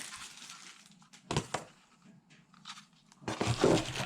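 Plastic packaging rustling and crinkling while tool batteries are lifted out of their box, with a couple of sharp clicks about a second and a half in. There is a near-quiet stretch in the middle.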